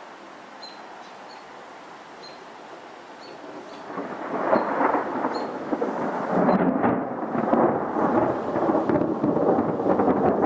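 Thunder: after about four seconds of quiet, a loud crackling, rumbling peal rolls in and keeps going. It comes from a dry thunderstorm with no rain falling.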